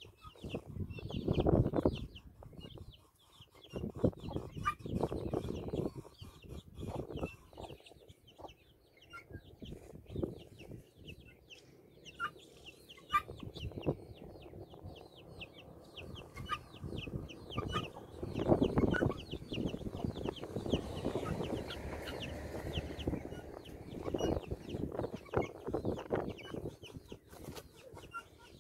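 Helmeted guinea fowl calling: many short, rapid high notes through most of the stretch, broken every few seconds by louder, harsh rasping bursts.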